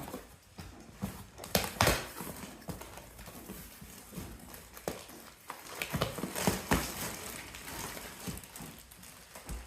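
A cardboard box being opened and its contents handled: scattered knocks, taps and rustling, with a few sharper knocks about two seconds in and again past the middle.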